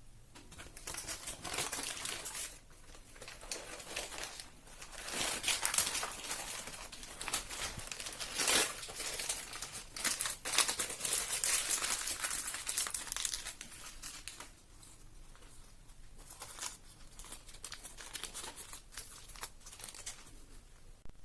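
Crinkling and rustling of a wrapper or packaging being handled, in irregular bursts that are busiest in the middle and die down near the end.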